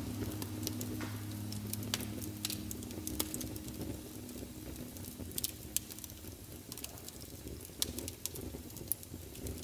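Log fire crackling in a fireplace, with scattered sharp pops at uneven intervals, over low sustained music tones that fade away in the first half.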